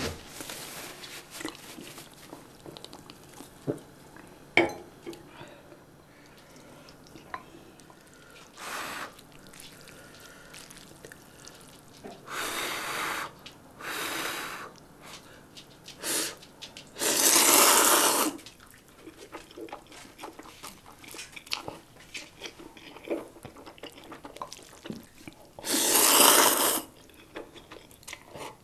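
Slurping instant ramen noodles: several loud slurps lasting up to about a second and a half each, the loudest about halfway through and again near the end, with small clicks in between.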